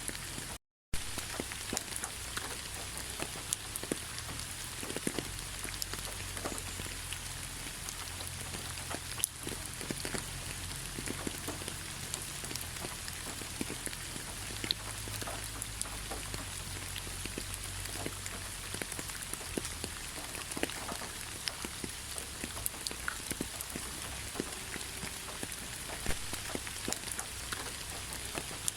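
Steady rain with many separate drops ticking sharply on a surface. The sound cuts out completely for a moment about a second in.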